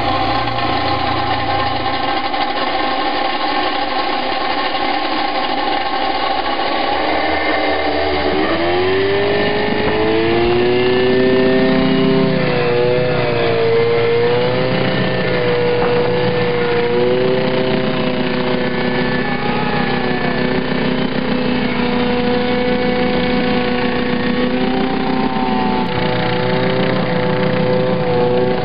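GEN H-4 one-man helicopter's small engines and coaxial rotors running in flight, a steady engine drone. Its pitch drops and climbs again about eight seconds in, wavers for a few seconds as the throttle changes, then holds steady.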